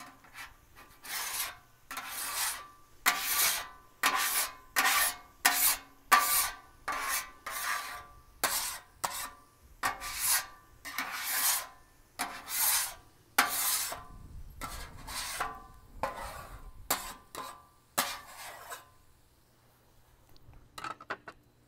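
Metal griddle scraper pushed in repeated strokes across the steel top of a Blackstone griddle, scraping off grease and residue, about one and a half strokes a second; the scraping stops about 19 seconds in.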